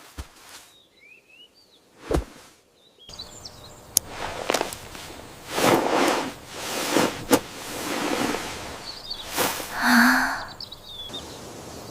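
Outdoor ambience with short bird chirps about a second in and again near the end, and a series of soft thuds scattered through the second half.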